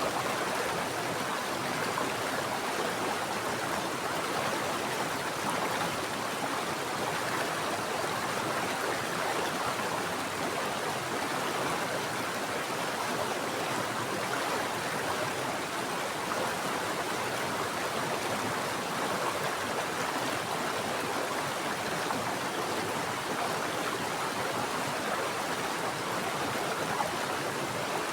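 Mountain stream flowing with a steady, even rushing of water.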